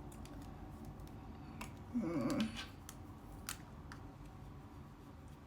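Small sharp clicks and taps of a makeup powder compact and brush being handled, with a brief hum-like vocal sound about two seconds in.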